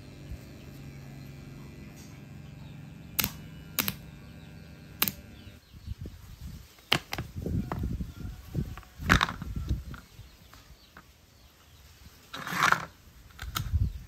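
Microwave oven transformer humming steadily on mains power with no load, broken by three sharp clicks. The hum stops about five and a half seconds in. It gives way to handling sounds: knocks and rubbing as a copper induction-hob coil in its plastic frame and its wire leads are picked up and moved about.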